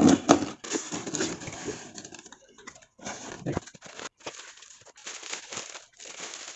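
A utility knife slitting the tape on a cardboard shipping box, then bubble wrap crinkling and rustling as a thin laptop LCD panel is pulled out of it.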